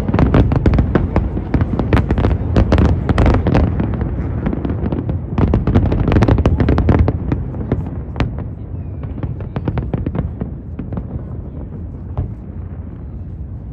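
Fireworks display: rapid cracks and bangs over a low rumble. They come densest in the first few seconds and again around the middle, then thin out to scattered bangs towards the end.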